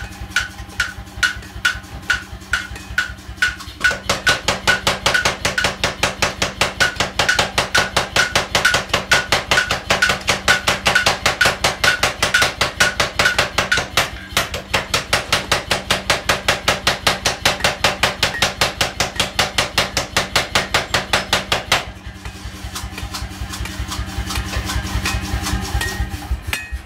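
Hand hammer striking hot steel on an anvil at a steady pace, each blow ringing. About four seconds in, a power hammer starts pounding in a fast, even run of blows over a motor hum, with a brief break midway. Near the end the blows stop and a low mechanical hum carries on.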